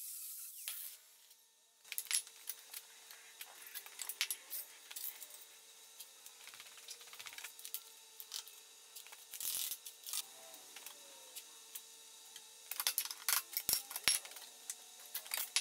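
Sharp metallic clinks and clanks of steel brackets being handled and bent on a manual sheet-metal folder, in scattered bunches that grow busier near the end, over a faint steady hum. A small grinder's high whir cuts off in the first second.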